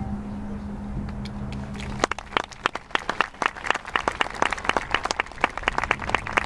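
The last ringing notes of a marching band's mallet percussion die away, then audience applause breaks out about two seconds in, with sharp claps close to the microphone.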